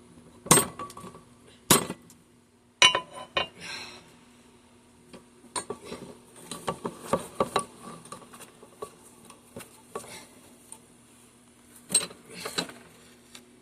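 Sharp metal-on-metal clanks from steel being worked in a bench vise: four loud strikes in the first few seconds, then lighter scattered clinks, and two more strikes near the end. A faint steady low hum sits underneath.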